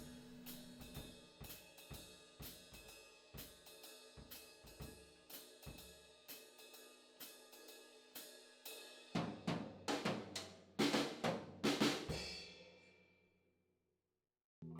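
Music led by a drum kit: a steady beat of snare and hi-hat over held notes, then a run of louder hits with ringing cymbals about two-thirds through that dies away to silence just before the end.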